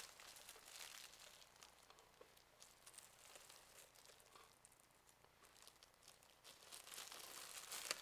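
Faint rustling and crinkling of power-supply packaging and cables being handled while the accessory pouch is unhooked, busier near the start and again near the end.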